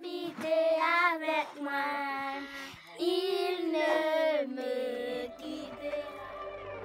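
Young children singing together without accompaniment, their voices wavering in pitch; the singing trails off about five seconds in.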